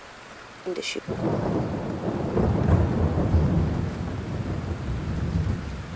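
A roll of thunder with rain, used as a sound effect between stories. The low rumble builds from about a second in, is loudest around the middle, and dies away near the end.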